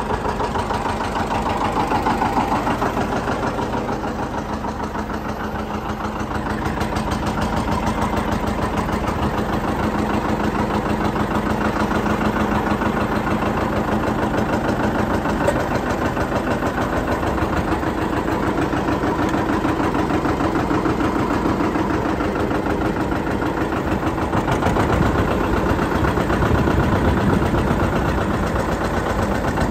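John Deere 730 Diesel tractor's two-cylinder diesel engine running with a fast, even, noisy firing beat, heard from the operator's seat. It gets a little louder near the end.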